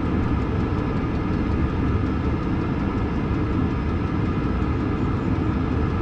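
Chinese diesel heater running at full power, its exhaust fitted with an Eberspacher silencer: a steady low rumble with a faint steady whine above it. The silencer gives a slightly less high-pitched sound, about 66 dB at a metre.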